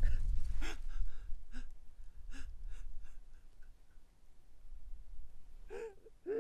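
An injured man gasping for breath in short, ragged gasps, roughly one every half second to a second, ending with a louder gasp that carries his voice. A low rumble dies away about a second in.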